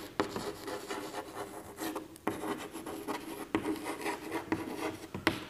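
Chalk scratching and tapping on a chalkboard as words are written by hand, in short irregular strokes.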